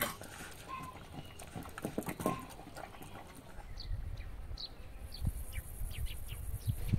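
A cat eating from a plate: irregular small wet clicks of chewing and lapping. About halfway through, this gives way to a low outdoor rumble with a few short, high bird chirps.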